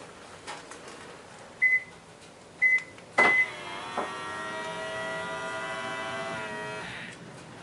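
Three short electronic beeps, the last with a sharp click, then the electric folding motor of a Subaru Legacy BR/BM side mirror whining steadily for about three seconds, its pitch shifting slightly just before it stops.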